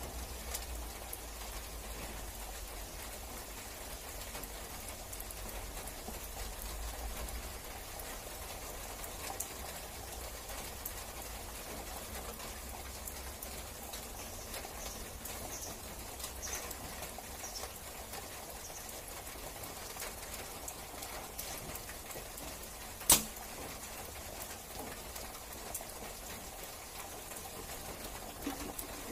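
Steady rain hiss and patter. About 23 seconds in comes one sharp, loud crack: a Topoint M1 compound bow being shot.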